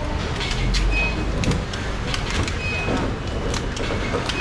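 Clear plastic clamshell fruit boxes being pressed and snapped shut by hand, a run of short crisp clicks and crinkles, over a low rumble of passing traffic that swells about a second in.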